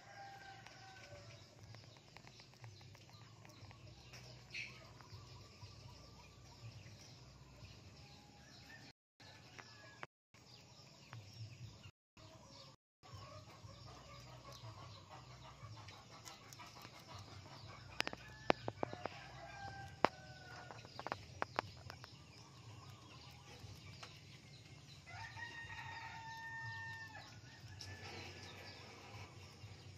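Faint bird calls in the background, with a longer call near the end that holds its pitch in two steps. A quick run of sharp clicks a little past the middle is the loudest sound. The sound cuts out briefly a few times before the middle.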